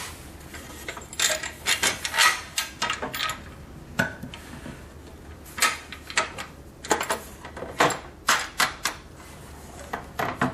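Irregular metal clicks and knocks as a rail clamp is handled and fitted to a circular-saw guide rail, about a dozen sharp taps scattered through.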